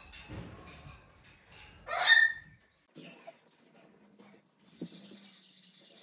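A pet parrot gives one short, loud call, rising in pitch, about two seconds in.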